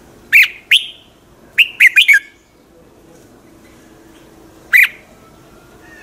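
Red-whiskered bulbul singing in short, sharp, downward-sweeping notes. Two come near the start, then a quick run of four, and a single note near the end.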